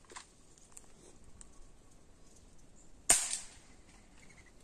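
A single gunshot about three seconds in: one sharp crack with a brief ringing tail, fired at doves, and the bird shot at does not fall.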